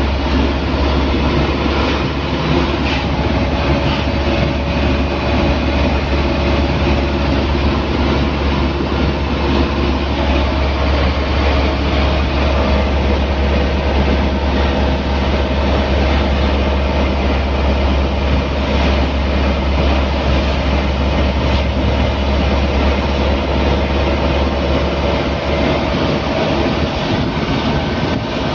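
Truck engine and road noise heard from inside the cab while driving on the highway: a steady, loud low drone with tyre and wind rush over it.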